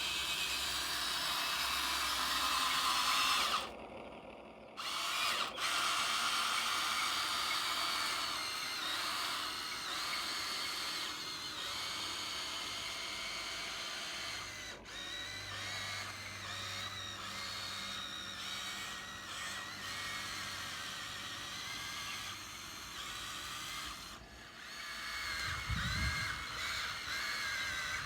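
Small electric motors of a radio-controlled excavator whining at a high pitch, like a drill. The whine cuts out briefly about four seconds in and shifts in pitch as the machine works. A low thud comes near the end.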